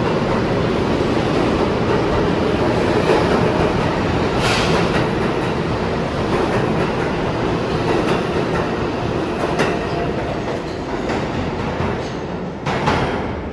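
New York City subway train running on the IRT Eastern Parkway Line through an underground station: steady wheel-on-rail noise with a few sharp clicks, getting quieter near the end.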